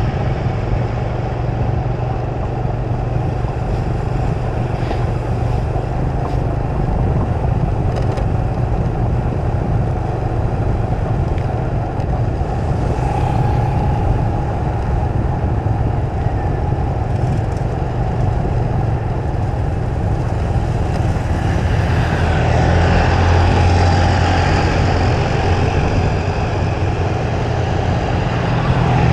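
Steady motor-vehicle and road-traffic noise: a continuous low engine hum under a constant rush of traffic, growing somewhat louder about three quarters of the way through.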